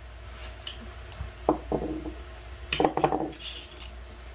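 Small hand tools being handled: a screwdriver and bits clicking and clinking against a plastic bit case, with a few single light clicks and then a short cluster of clinks near the three-second mark.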